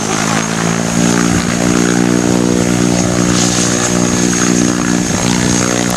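Propeller engine of a skydiving jump plane running at a steady pitch, a little stronger from about a second in.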